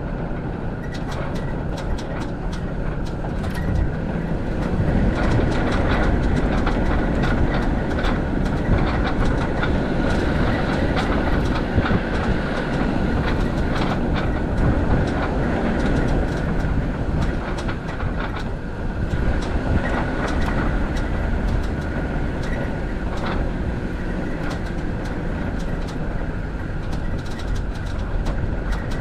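Land Rover Defender 90 Td5's five-cylinder turbodiesel running as it drives over a rough, stony dirt track, with frequent knocks and rattles from the body and suspension over the ruts.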